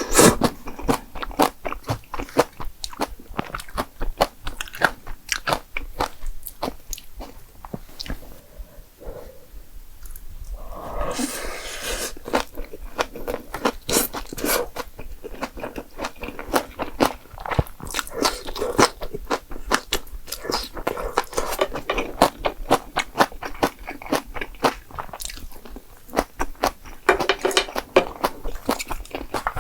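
Close-up eating sounds: a person chewing and crunching Jjapagetti noodles with spicy green onion kimchi, with many sharp wet mouth clicks and two longer, noisier stretches, one around the middle and one near the end.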